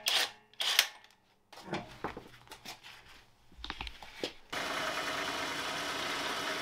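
Cordless impact wrench hammering steadily for about two and a half seconds, starting about four and a half seconds in. Before it come scattered short knocks and clunks.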